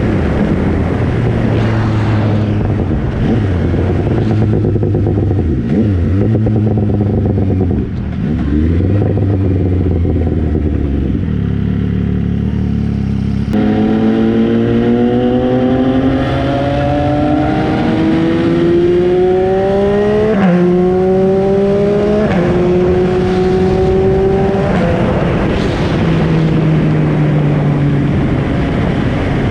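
MV Agusta Brutale 800's three-cylinder engine under way. It runs at steady low revs, then about halfway through accelerates in a long rising climb. It upshifts twice, each shift a sudden drop in pitch before climbing again, then the throttle eases off near the end.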